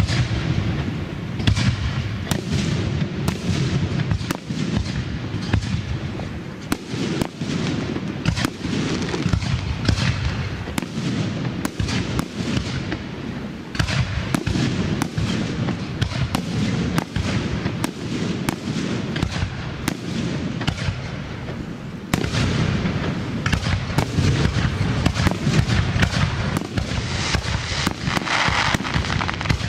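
Aerial fireworks shells bursting in a rapid, unbroken series of sharp bangs over a deep low rumble.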